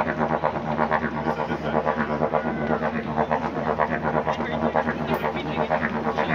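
Didgeridoo played with a steady low drone and a quick, even rhythmic pulse.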